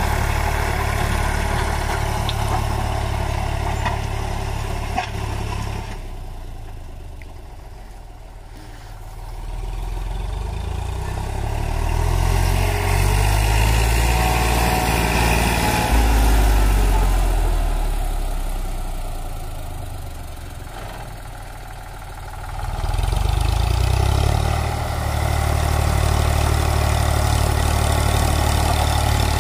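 Eicher 548 tractor's three-cylinder diesel engine running steadily under load as it drives a rotavator through the soil. The sound dies down twice and comes back up.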